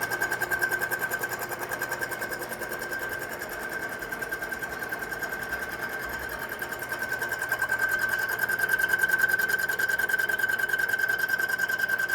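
Milling machine taking a resurfacing cut across a cylinder head's deck face, the cutter ringing at a steady high pitch with a rapid, even pulsing as it works.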